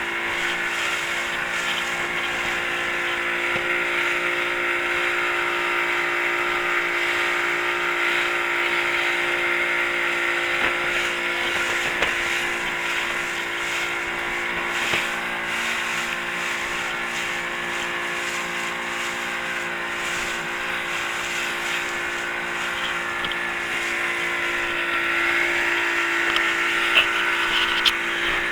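Boat engine running steadily at a constant speed, with a hum that holds one pitch throughout.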